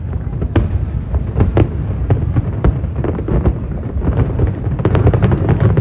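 Aerial fireworks bursting in quick succession: a dense run of booms and cracks, about two or three a second, over a continuous low rumble.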